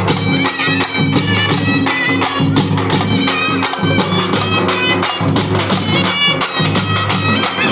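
A dappu troupe beating its frame drums with sticks in a fast, dense rhythm. Under the drums runs a steady drone, and a reedy wind-instrument melody rises and falls above them.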